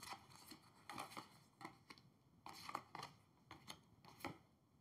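Faint, irregular clicks and soft slides of tarot cards being drawn from the deck and laid down on a table.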